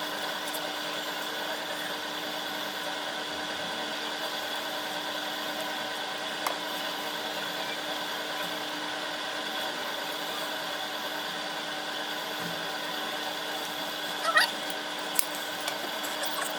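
A steady mechanical hum made of several even tones, with a couple of brief clicks and a short chirp near the end.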